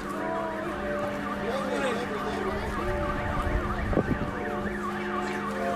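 Several car alarms set off by the earthquake, sounding together: steady wailing tones overlaid with a fast up-and-down warble, with a few voices crying out over them.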